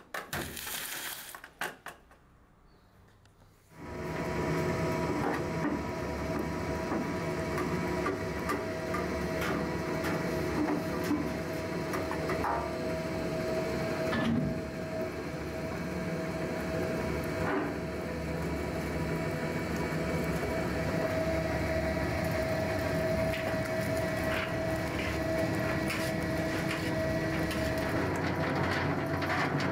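Soap-making factory machinery starting up about four seconds in and then running steadily, with a constant hum and scattered clicks and knocks.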